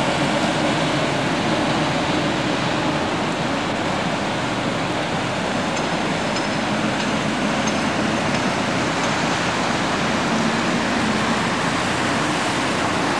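Steady rumble and hiss of a Berlin S-Bahn train running along the elevated viaduct, mixed with city traffic, with faint high squeals about six to nine seconds in.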